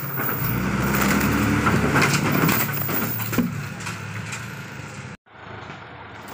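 Truck engine revving as the truck pulls forward, with heavy knocks and cracks of large logs tumbling off its bed onto the ground. The sound cuts off suddenly about five seconds in, after which the engine is heard running more quietly.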